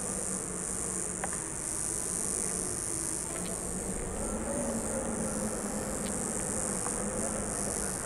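Steady high-pitched buzzing of insects, likely crickets or cicadas, that thins out for a few seconds mid-way, over a faint low hum.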